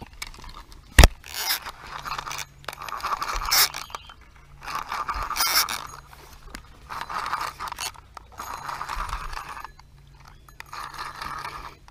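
Fishing reel being cranked in short spurts of about a second each, a whirring, scraping rattle that stops and starts about six times, with one sharp click about a second in.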